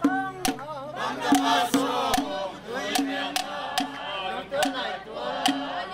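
A group of voices singing and chanting together over a steady drum beat, about one stroke every 0.8 seconds.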